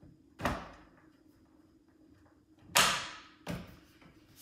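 Three sharp knocks as a piece is pushed and tapped into place on the end of a Rockymounts Tomahawk bike rack's tray. The middle knock is the loudest, and the last two come less than a second apart.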